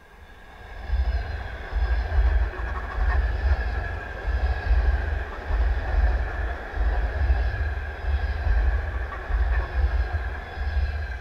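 Suburban electric multiple unit (elektrichka) passing close by, its wheels clattering in a regular beat of heavy thumps about every second over a steady rumble. It builds up in the first second and starts to fade at the end.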